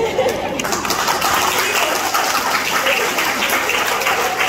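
Audience clapping, a dense patter of many hands that fills in within the first second and holds steady, with a few voices in the crowd.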